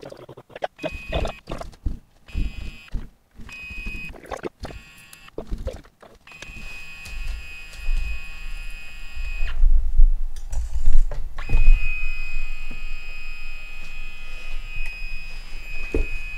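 A steady high-pitched electronic whine that comes in short bits at first, then holds for several seconds, breaks off briefly, and returns. Under it are clicks, knocks and low thumps of handling.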